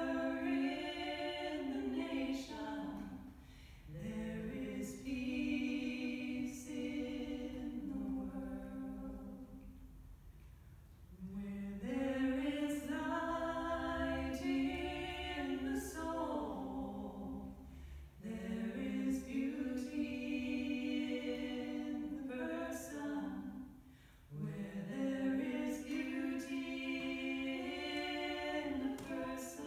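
Two women's voices singing a cappella as a duet. They sing long, held phrases with short pauses for breath between them.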